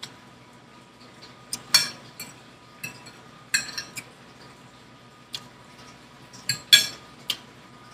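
Metal fork clinking and scraping against a dinner plate while eating: a scattered series of about ten sharp clinks and short scrapes, the loudest a little under two seconds in and again near the end.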